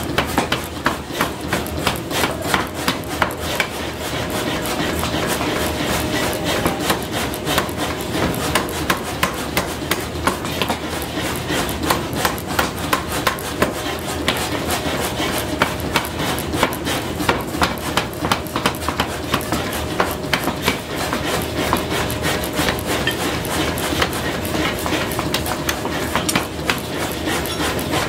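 Mechanical power hammer striking a glowing hot iron piece held in tongs on its anvil: rapid, evenly repeated blows that carry on without a break, over a steady machine hum.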